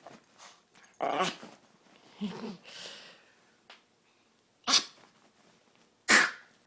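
Yorkshire terrier puppy sneezing and coughing in a fit of short bursts, ending with two sharp sneezes about a second and a half apart. The fit is brought on by excitement, which the owner puts down to the breed's short airway.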